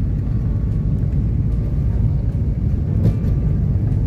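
Car driving along a dirt road: a steady low rumble of tyres and engine, with a few small knocks and rattles.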